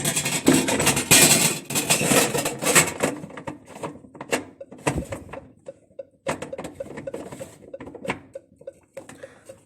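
Clattering, clicking and knocking of the dishwasher's plastic filter parts being taken out and handled: a dense run of knocks for the first few seconds, then scattered single clicks.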